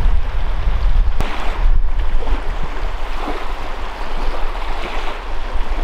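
Wind buffeting the microphone over the steady wash of waves on a lakeshore, with a heavy rumble underneath.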